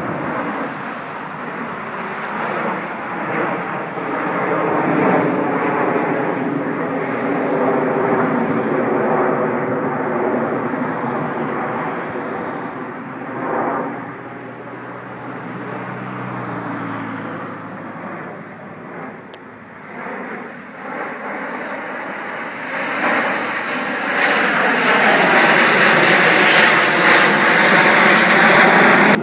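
A formation of CT-114 Tutor jets, each with a single turbojet, flying over. Their jet noise sweeps up and down in pitch as they move. It eases off through the middle and swells loud, with more hiss, near the end as the nine-jet formation passes close overhead.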